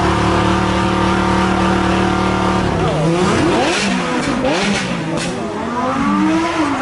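Lamborghini Huracán Performante Spyder's naturally aspirated V10 held at steady high revs on the start line, then about three seconds in it launches away, its pitch rising and dropping through quick upshifts.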